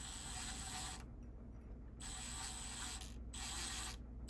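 Cordless impact driver backing out a screw, run in short bursts about a second long, three of them plus a shorter one near the end, each with a thin high whine over a rattling hammer.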